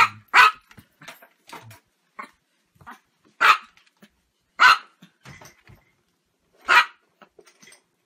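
Chihuahua barking: five short, sharp barks. The first two come in quick succession, then single barks follow a second or two apart.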